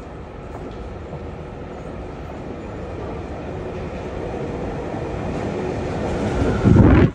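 Subway train approaching along the tunnel into an underground station. Its rumble grows steadily louder, then becomes a loud rush near the end as the train enters the platform.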